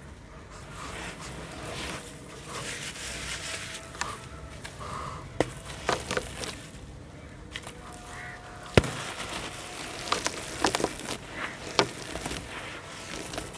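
Handmade sand-and-cement balls being crumbled by hand into a plastic tub of water: gritty crumbling and pouring, with splashes and several sharp cracks as lumps break, the loudest about nine seconds in.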